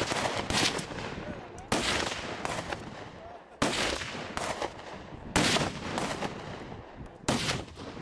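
Gunfire: about ten shots at irregular intervals, some in quick pairs, each followed by a long echo that dies away.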